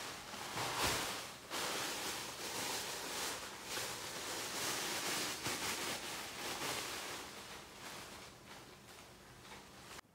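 Thin plastic carrier bags crinkling and rustling as they are handled, in a run of irregular bursts that fades over the last few seconds and cuts off suddenly near the end.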